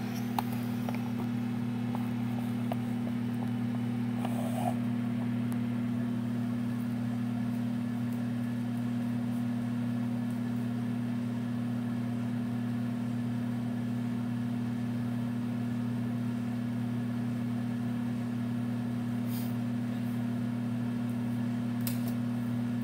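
Over-the-range microwave oven running mid-cook with a steady low hum, heating a steak.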